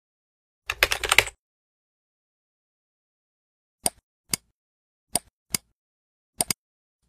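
A quick burst of typing on a computer keyboard about a second in, then six separate sharp computer clicks spread over the next few seconds, the last two close together.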